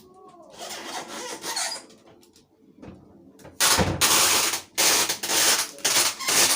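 Clear adhesive tape pulled off its roll: one softer pull about half a second in, then several loud, noisy pulls in quick succession near the end.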